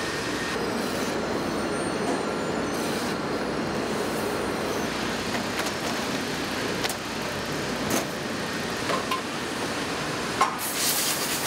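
Automated oil-filter production machinery running steadily, with a few sharp clanks and a burst of high hiss near the end.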